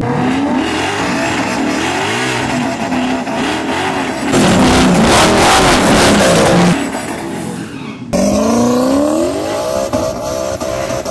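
Whipple-supercharged Ford Mustang GT V8 revving, then doing a burnout: for about two seconds the engine is at high revs with loud tyre squeal. About eight seconds in, a sudden cut to a second Mustang's engine revving up and rising in pitch as its rear tyres spin.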